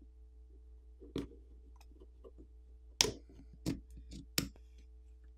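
Plastic catches of a OnePlus Nord N20 5G's back housing snapping loose as a plastic pry pick is run along the edge between housing and frame: a handful of sharp clicks, the loudest about three seconds in.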